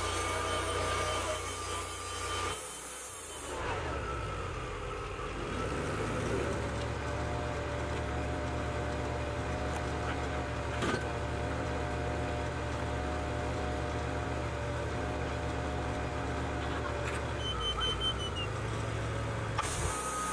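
Wood-Mizer portable bandsaw mill's engine running steadily while the saw head travels along the log, with abrupt shifts in the sound about two and a half seconds in and near the end.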